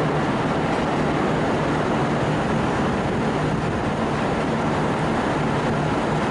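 V/Line VLocity diesel multiple unit running past slowly on the station tracks: a steady diesel engine rumble and hum mixed with rolling wheel noise.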